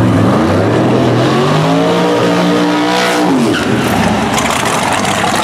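Drag car's engine during a burnout: the revs climb over the first two seconds, hold high with the tyres spinning, then drop away about three and a half seconds in.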